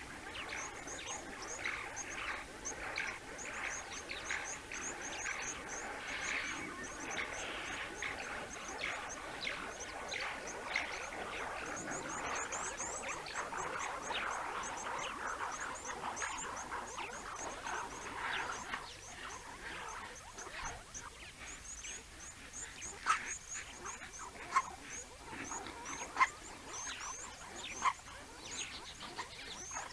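A troop of banded mongooses keeps up a dense chatter of short contact calls. Near the end it thins out to a few separate, louder, sharp calls.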